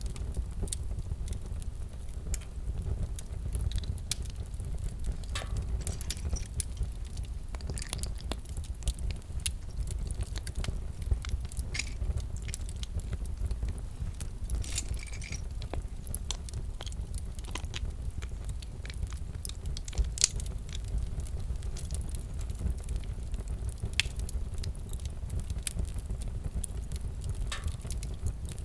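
Fireplace fire crackling: a steady low rumble of burning with irregular sharp pops and snaps, and a short hiss about halfway through.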